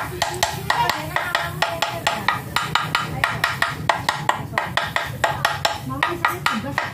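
Hammer striking the rusted hub of a water-pump impeller, steady metallic blows about three or four a second, hammering to free the corroded impeller from its shaft.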